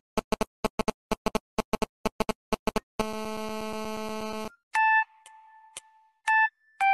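Mobile-phone interference coming through computer speakers: a string of short dit-dit pulses in a quick rhythm, then a steady buzz for about a second and a half. This is the sign of a GSM phone nearby about to receive a call. Then the Samsung phone's ringtone starts, a high beeping tone that sounds three times.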